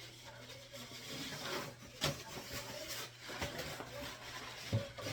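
A mirror being wiped down with a cloth: uneven rubbing swishes against the glass, with two sharp clicks, one about two seconds in and one near the end.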